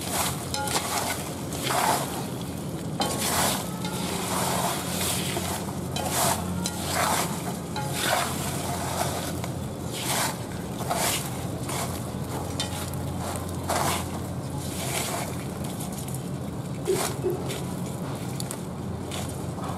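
Chopsticks stirring live freshwater crabs and coarse salt in a metal basin: shells and salt scraping and rattling against the metal in repeated strokes, about one a second.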